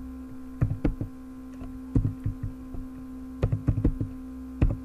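Computer keyboard keys tapped in short, irregular clusters of clicks as a name is typed, over a steady electrical hum.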